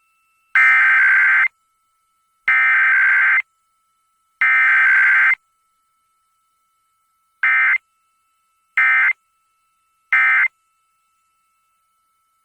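Emergency Alert System SAME digital data bursts on a radio broadcast. Three bursts of about a second each carry the header code, then after a pause come three short end-of-message bursts, with no attention tone between them.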